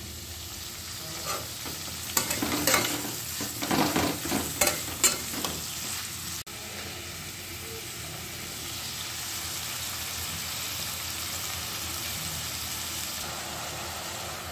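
Sliced onions and whole spices frying in oil in a metal kadhai, sizzling, with a spatula scraping and knocking against the pan for a few seconds, then a steady sizzle.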